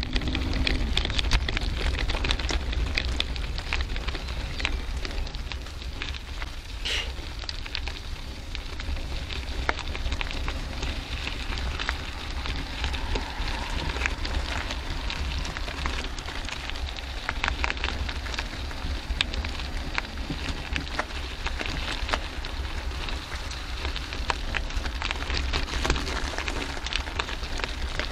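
Bicycle tyres rolling over a loose gravel path: a steady crackling crunch with many small clicks and rattles, over a low rumble of wind on the microphone.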